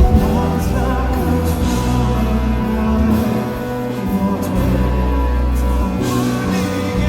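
A live band plays a song over a festival PA, with steady bass and sustained chords and some singing over it.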